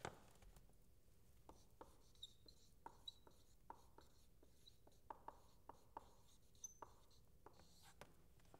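Faint marker strokes on a board, a string of short scratches and taps with a few brief squeaks as letters are written.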